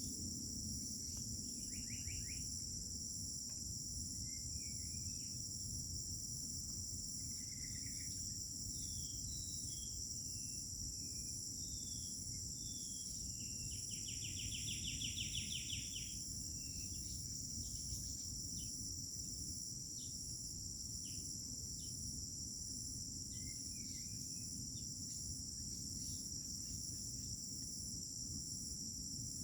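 Crickets chirping in a steady high-pitched chorus, with scattered short bird calls and one louder rapid bird trill about halfway through, over a low steady background rumble.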